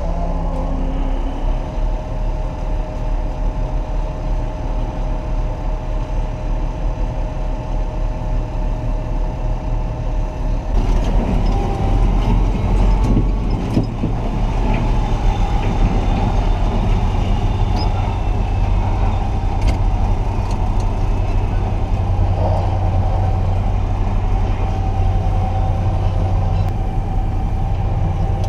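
Tractor engine running steadily, growing louder and busier about eleven seconds in.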